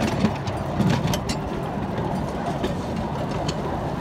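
Steady rumble of a small open-carriage park ride train in motion, with a few sharp clicks and rattles about a second in.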